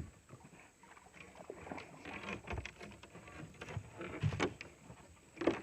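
Faint scattered knocks and clicks over low background noise, the loudest about two and a half and four and a half seconds in.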